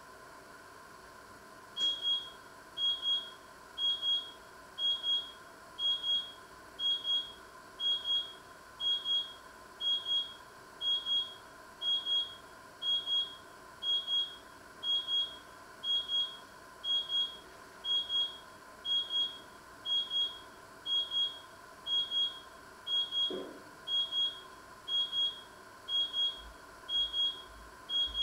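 Electronic alarm beeping in high-pitched double beeps, about one pair a second, starting about two seconds in and going on without a break. A faint steady hum lies underneath.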